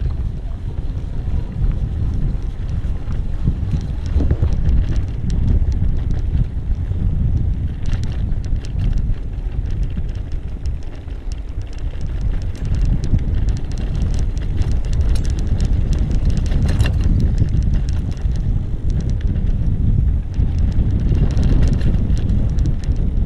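Wind buffeting the microphone during an e-bike ride on a dirt trail, with many small clicks and rattles from the bike and its tyres over rough ground.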